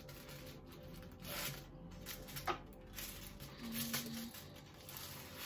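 Soft handling noises as small objects are picked up and set down, with a sharp click about two and a half seconds in.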